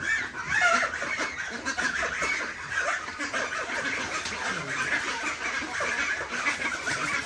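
Poultry clucking and calling, many overlapping short calls over a steady hiss.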